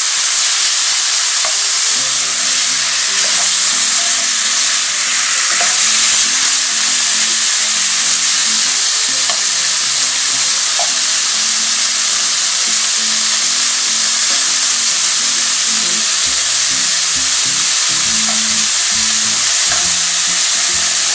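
Cubed chicken sautéing in hot oil with onion, garlic and ginger, sizzling steadily while a spatula stirs and turns the pieces in the pan.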